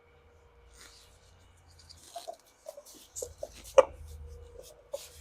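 Scattered clicks and knocks from wheel parts being handled, with one sharp knock late on, over a faint low hum.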